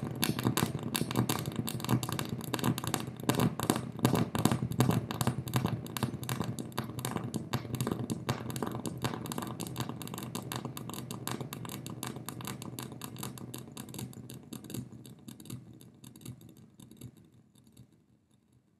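Electronic noise from a speaker: a solar cell picking up strobe-light flashes, fed through delay and distortion pedals, gives a dense, rapid stream of clicks and crackle. It thins out and fades over the last few seconds to silence.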